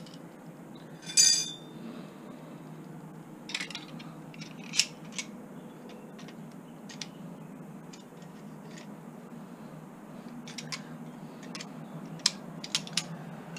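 Metal clinks and clicks as brass tap parts are handled and gripped with tongue-and-groove pliers: one loud ringing clink about a second in, then scattered small metallic clicks and taps.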